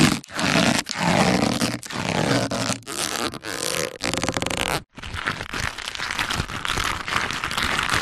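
Cartoon rubber-stretching sound effects. The first half is a series of short stretches, each under a second, with brief gaps between them. From about five seconds in it becomes a continuous stretch made of fine crackles.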